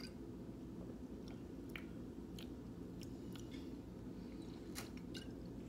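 A person chewing food: soft, scattered wet mouth clicks over a steady low background hum.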